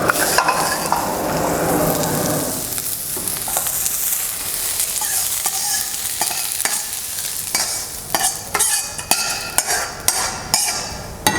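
Food sizzling as it fries in a pan while being stirred, with a steady hiss; from about eight seconds in, a run of sharp knocks and scrapes of the utensil against the pan.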